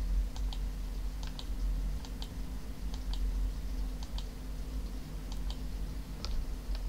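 Computer mouse clicks, short and sharp and mostly in close pairs, at uneven gaps of about a second, as vertices are selected one at a time, over a steady low electrical hum.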